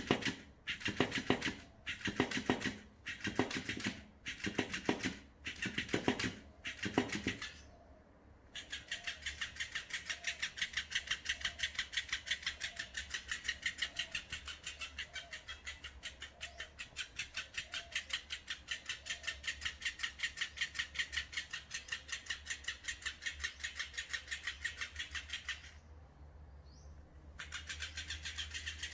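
Electric flopping-fish cat toy, a plush fish with a small motor inside, thrashing against a wooden table. It starts with slow, uneven thumps about one or two a second, then after a short pause changes to a fast, even flapping of about six slaps a second over a low motor hum, a faster setting of its multi-step switch. The fast flapping stops briefly near the end and starts again.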